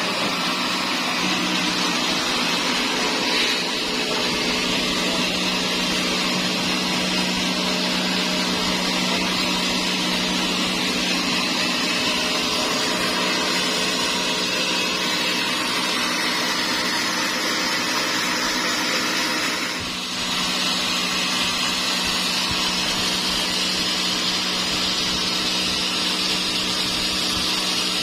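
Sawmill saw running steadily through dry teak: an even, loud hiss of the blade in the wood over a steady motor hum, dipping briefly about twenty seconds in.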